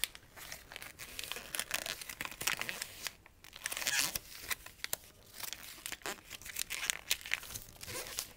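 A sheet of origami paper crinkling and crackling as it is handled and creased into a petal fold, in many short sharp bursts with a brief pause a little past three seconds in.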